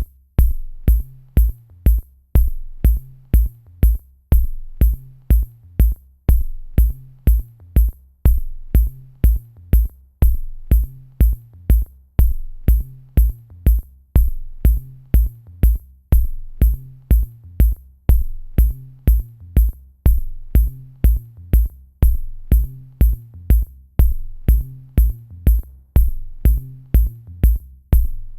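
Electronic background music with a steady drum-machine beat: a regular low kick drum with high ticks above it.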